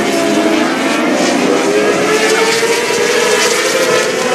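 A pack of non-wing open-wheel race cars racing around a dirt oval, their engines running together in a steady loud drone whose pitch rises gradually.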